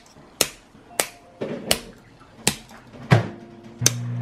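Hobby side cutters snipping plastic model-kit parts off the runner: a series of sharp snaps, about six, a little more than a second apart at most. A low steady tone comes in near the end.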